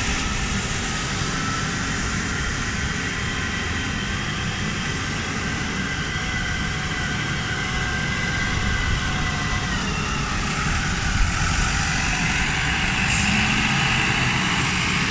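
Diesel engine of a 5-ton rough-terrain forklift, a Cummins QSF3.8 four-cylinder, running steadily as the forklift drives, with a whine over the engine note that shifts in pitch about two-thirds of the way through.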